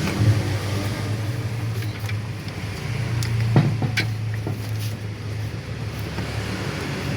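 A steady low electrical hum, with a couple of light clicks around the middle.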